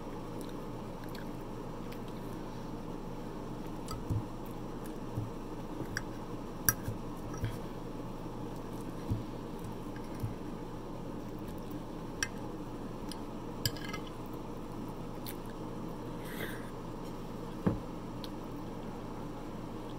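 Eating at close range: squishy chewing and mouth sounds, with about a dozen sharp clicks of a metal fork against the plate as Salisbury steak in gravy is cut and forked up, over a steady low hum.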